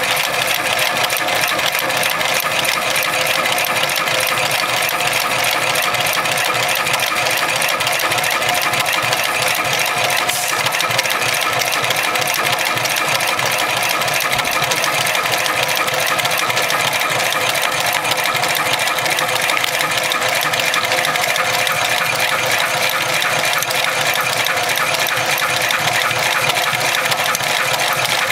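Cowboy 71008R automatic heavy-duty sewing machine stitching through thick twisted rope, running steadily with a fast, even stitch rhythm.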